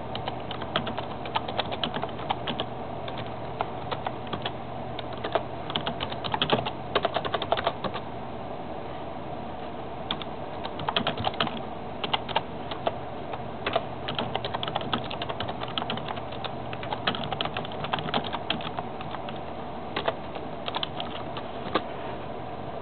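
Rapid, irregular small clicks and taps coming in clusters over a steady low hum.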